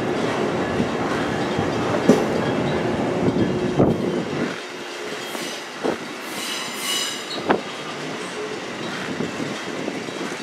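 Amtrak Amfleet passenger coaches rolling past along the platform with a steady rumble and sharp wheel clicks over rail joints. The deep rumble drops away about four and a half seconds in, and a brief high-pitched wheel squeal comes about six to seven seconds in.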